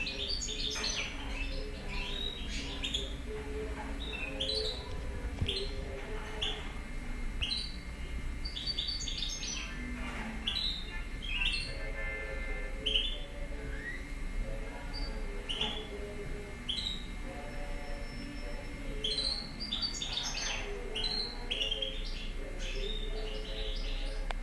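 European goldfinch singing from a cage, a long run of quick twittering chirps and short trills. A steady low hum runs underneath.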